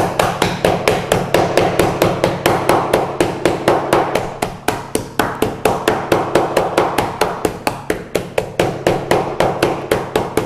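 Metal meat-tenderizer mallet pounding whole spices in a plastic bag on a plastic cutting board, rapid even strikes about five a second. The hard whole spices are being crushed before they go into the blender.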